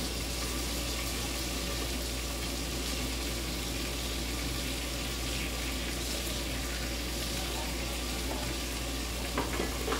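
Steady sizzle of food frying in oil in a pan on the stovetop, with a couple of light clicks near the end.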